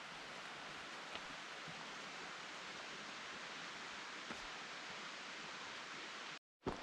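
Steady rush of flowing water, cutting off abruptly near the end.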